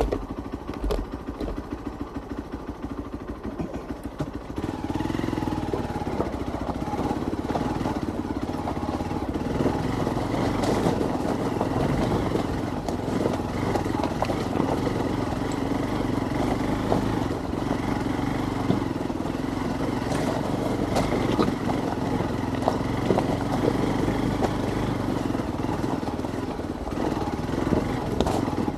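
Hero XPulse 200's single-cylinder engine running as the motorcycle rides over rough, stony ground, with frequent sharp clicks and knocks scattered through it. About five seconds in the engine gets louder and steadier.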